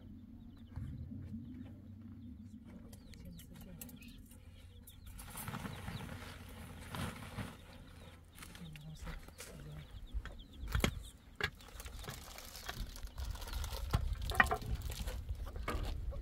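Digging and moving stones and soil by hand in rocky ground: scraping and shuffling, with a few sharp knocks of stone on stone, the loudest near the end.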